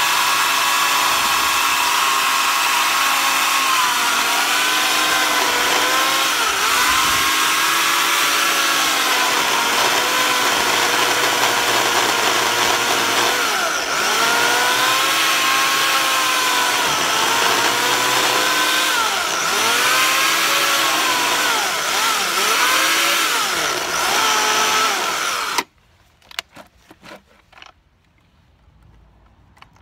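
Makita chainsaw cutting into a green cherry log, its whine sagging in pitch and recovering again and again as the chain bites into the wood. The saw stops suddenly near the end.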